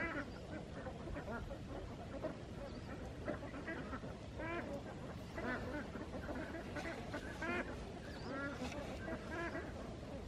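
Ducks quacking intermittently, short calls about once a second, over low background noise.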